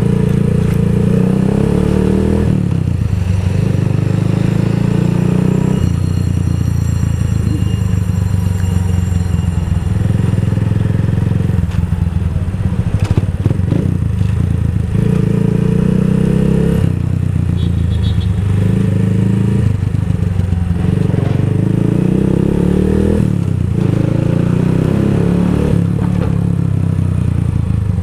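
Keeway CR152 motorcycle's single-cylinder engine running under way, heard from the bike-mounted camera. Its note rises and drops several times with throttle and gear changes.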